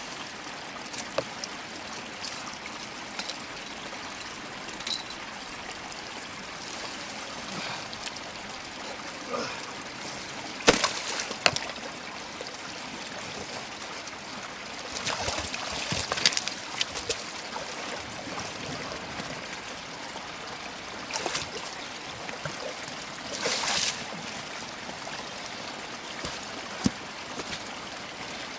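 A creek's water running steadily, with several splashes and sloshes, the loudest about eleven seconds in, around fifteen to seventeen seconds and near twenty-four seconds.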